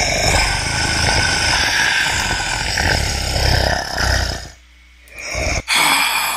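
Halloween monster sound effect playing from an MP3: a rough, animal-like growling voice. It cuts off about four and a half seconds in, and a second, shorter burst follows about a second later and fades away.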